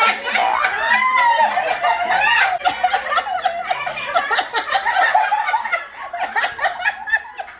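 Several people laughing loudly and talking over one another, with high, drawn-out squeals of laughter in the first couple of seconds.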